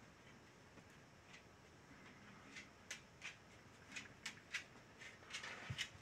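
Near silence: room tone, with a scattering of faint, short clicks in the second half.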